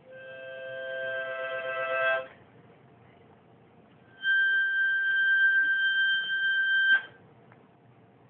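Harmonica played in two long held blows: first a chord that swells louder for about two seconds, then, after a short gap, a higher note held for nearly three seconds that cuts off suddenly.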